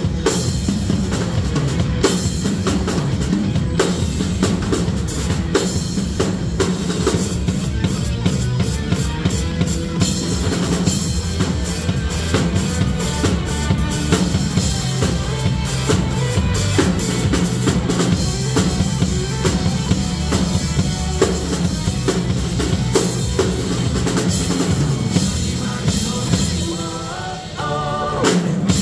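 Acoustic drum kit played live in a rock groove, with bass drum, snare and cymbals hitting steadily over backing music from a PA speaker. The drumming drops back briefly near the end before picking up again.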